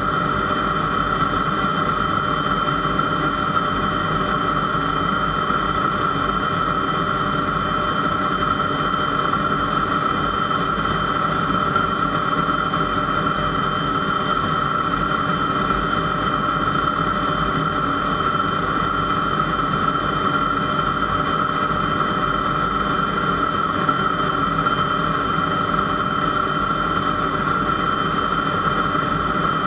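Aero L-29 Delfin's Motorlet M-701 turbojet running at a steady setting with a constant whine, the aircraft held stationary on the runway.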